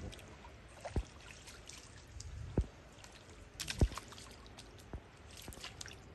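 Small splashes and drips of water, scattered and irregular, with a few sharper ones about a second in, midway, and just before four seconds.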